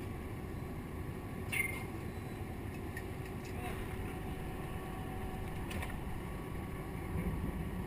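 Steady low engine and water rumble beside a ship's hull. Over it, a sharp metallic clink about one and a half seconds in and a fainter one near six seconds, from the crane hook and sling shackles being handled.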